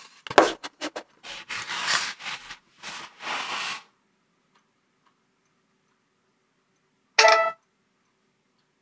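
Knocks, then rustling and scraping of a cardboard phone box being picked up and set down on a desk for about four seconds. After a quiet stretch, one short sharp toned sound comes near the end.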